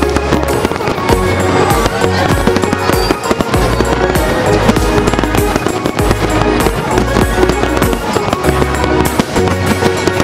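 Aerial fireworks going off in a dense, continuous barrage of bangs and crackles, mixed with loud music carrying a deep, held bass line.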